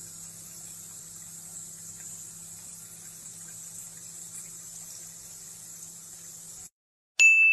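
Tap water running steadily onto elbow macaroni in a metal colander, a steady hiss that cuts off about two-thirds of the way through. Near the end a sudden loud ding rings on in one high tone.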